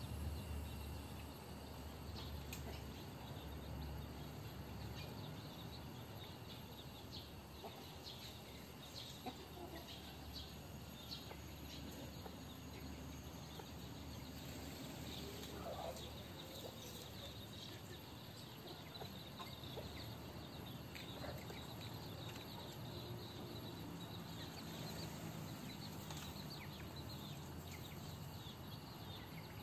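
Faint clucking of chickens over steady outdoor background noise.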